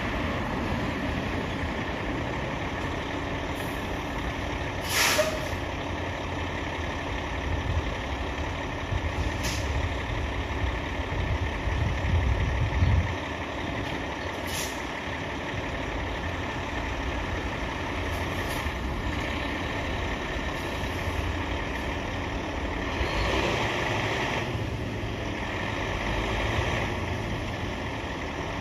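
Fire engine's diesel engine idling, its rumble swelling for a few seconds around ten to thirteen seconds in. There is a sharp hiss of air about five seconds in, a few fainter short hisses after it, and a longer hiss later on, typical of the air brakes being released.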